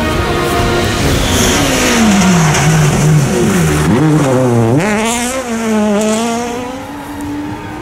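Peugeot 106 rally car engine: its pitch falls in steps as the car brakes and downshifts into a corner, then rises sharply about five seconds in as it accelerates hard away, fading as it leaves.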